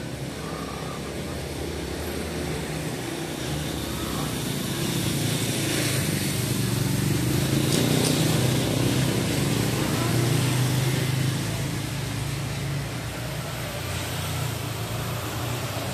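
A motor vehicle's engine passing in the street. Its low hum swells for several seconds and then fades.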